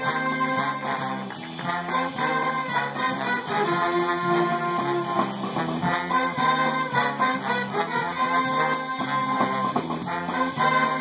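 Swing band with saxophone, trumpet and trombone sections playing a swing tune live, the horns sounding together over a steady beat.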